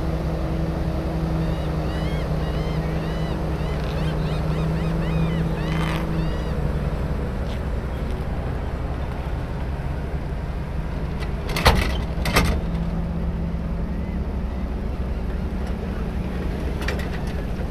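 Boat engine running at the ramp with a steady hum that fades out about six seconds in, over a continuous low rumble. Two sharp knocks come close together about twelve seconds in.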